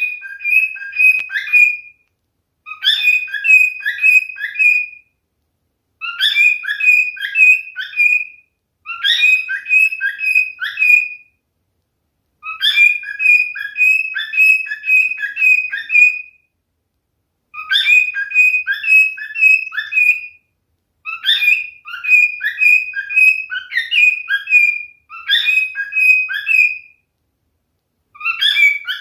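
Male cockatiel singing: a whistled phrase of quick, repeated chirping notes, given about nine times in bursts of two to four seconds with short pauses between.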